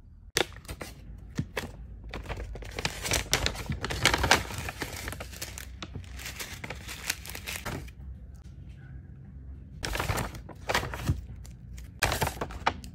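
Paper bags and a small plastic bag of red foam beads being handled, crinkling and rustling in irregular bursts with a few sharp clicks, the longest stretch in the first half and shorter bursts near the end.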